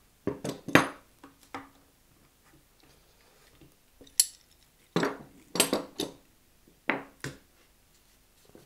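Steel G-clamps being unscrewed from a guitar headstock and set down on a wooden workbench: a string of metal clanks and knocks, some ringing briefly. There is one cluster in the first second and a half and another from about four seconds in, with a quiet gap of about two seconds between.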